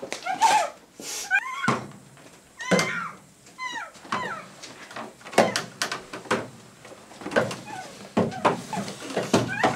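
Whimpering cries with short gliding pitches, mixed with several knocks and thuds of footsteps on wooden basement stairs.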